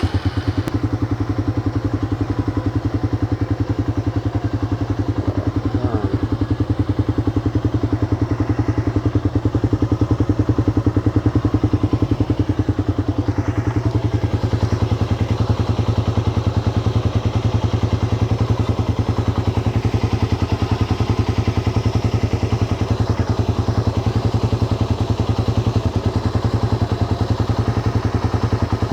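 Suzuki Raider 150's single-cylinder four-stroke engine running steadily at idle with a fast, even beat, just after starting following long storage.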